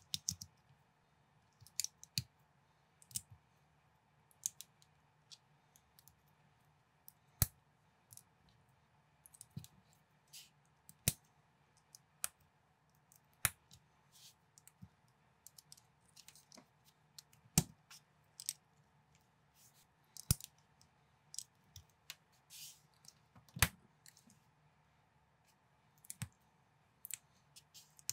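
Plastic LEGO bricks clicking as they are handled and pressed together, in irregular sharp clicks about every second or two, some in quick pairs, over a faint steady hum.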